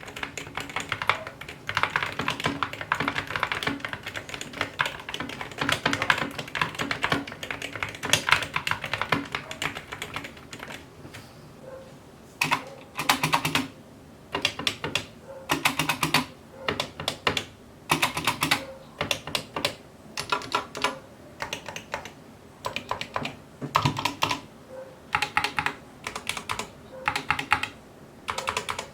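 Epomaker compact keyboards with linear red Gateron optical switches being typed on as a sound test. For about the first ten seconds the keystrokes are fast and continuous. After that they come in short bursts with brief pauses between.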